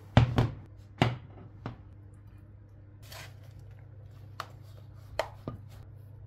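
A glass baking dish set down on a glass-ceramic hob: several sharp clunks of glass on glass in the first two seconds. Then a soft rustle and a few light clicks of a bowl against a ceramic dish as crumble topping goes onto berry filling, over a low steady hum.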